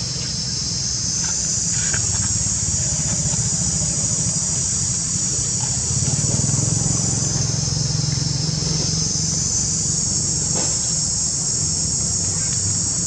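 Steady high-pitched chorus of insects, with a steady low hum underneath that swells slightly about halfway through.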